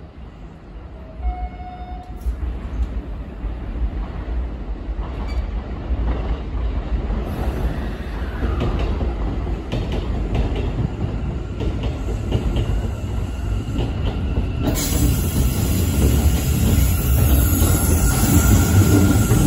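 Hanshin electric train pulling out of a station. Its motor whine rises in pitch as it picks up speed, and the rumble of the wheels on the rails grows steadily louder as the cars run past close by, turning hissier near the end.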